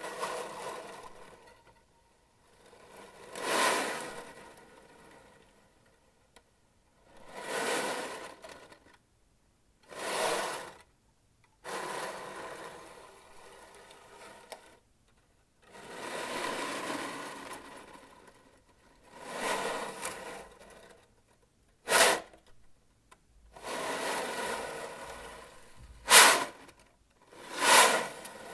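A sound-effect soundtrack of separate noisy swells, each rising and falling over a second or two, with silent gaps between them and a few short sharp hits in the last third.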